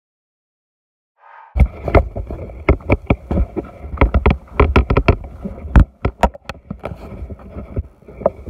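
Silent for about the first second and a half, then loud, irregular thumps, knocks and rustling from a handheld camera carried by someone walking quickly along a path in slide sandals: footsteps and handling bumps on the microphone.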